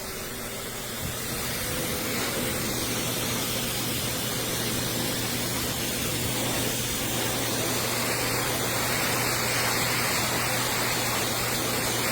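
CHAOLUN high-velocity pet hair dryer blowing a steady rush of air over a motor hum. About a second in, its faint whine steps up in pitch and the air noise grows louder as the airflow is turned up.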